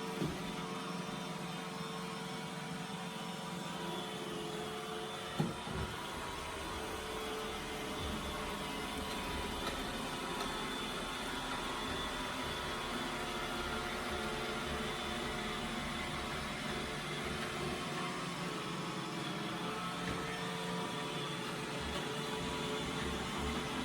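iRobot Roomba robot vacuum running with a steady whirring hum, with two short knocks, one right at the start and one about five seconds in.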